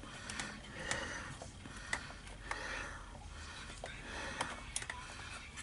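Faint scattered ticks and scrapes of a small screwdriver turning a screw into a Nerf blaster's plastic shell, with soft breathing.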